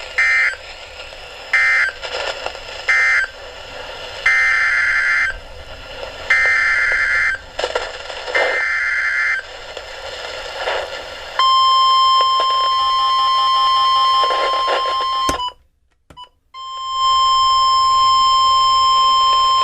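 NOAA Weather Radio receiver sending its SAME data codes: three short end-of-message bursts, then three longer header bursts announcing the next warning. About eleven seconds in comes the steady 1050 Hz warning alarm tone, which cuts out for about a second and then resumes.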